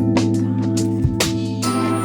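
Ambient electronic music: sustained synth chords over a steady beat of about two hits a second, with a bright high shimmer coming in near the end.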